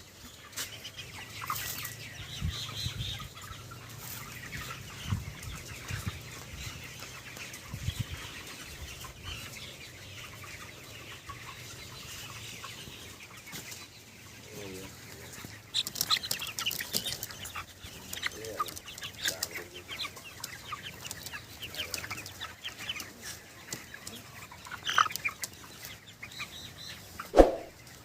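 A house of caged 23-day-old broiler chickens clucking and calling, with scattered clicks and rustles. One loud sudden sound comes near the end.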